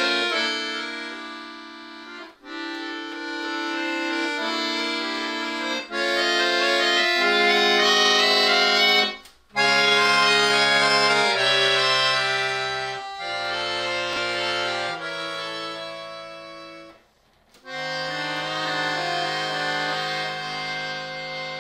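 Chromatic button accordion played solo: full sustained chords moving in phrases over low bass notes, with short breaks between phrases, the clearest about nine seconds in and another about seventeen seconds in.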